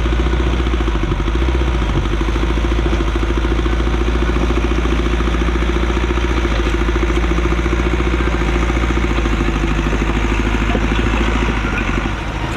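Allis-Chalmers 655 track loader's engine running steadily with a fast, even throb.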